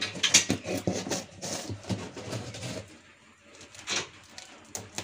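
Packing tape being peeled off a cardboard box, a crackling, tearing rip with the cardboard rustling under the hands. It is busiest in the first three seconds, dips, and rips again briefly about four seconds in.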